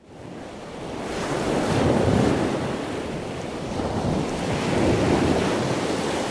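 Ocean surf: an even rushing wash of waves that starts abruptly, builds over the first two seconds and swells again later on.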